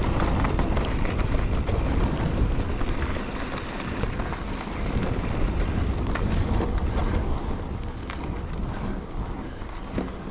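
Mountain bike being ridden on a trail: wind rumbling over the action camera's microphone and tyres rolling on dirt, with scattered clicks and knocks from the bike rattling over bumps.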